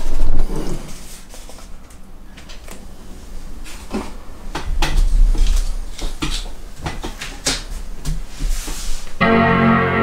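A knock as the iMac is handled right at the start. About nine seconds in, the late-2009 27-inch iMac plays its startup chime, a sustained chord that rings on, as the computer powers on.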